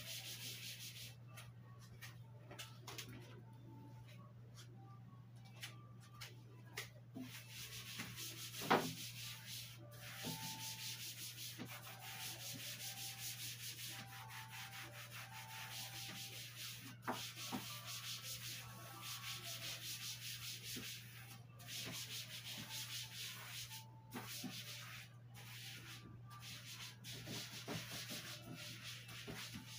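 Kitchen scouring sponge scrubbing the flat surfaces of a white shelf unit in repeated back-and-forth strokes: a faint, steady rubbing hiss that comes and goes with each stroke. A single light knock sounds about nine seconds in, over a low steady hum.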